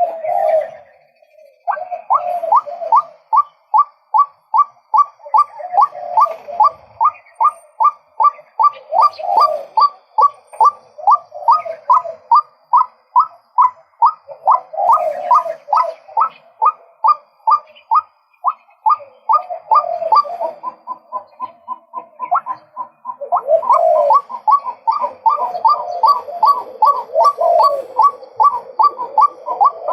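Male white-breasted waterhen calling: a long run of the same note repeated about twice a second, with lower croaking notes running underneath.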